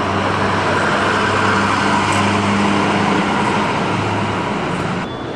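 Street traffic: a motor vehicle's engine running close by, a steady low hum under a loud, even rush of road noise. It starts suddenly and drops away suddenly about five seconds in.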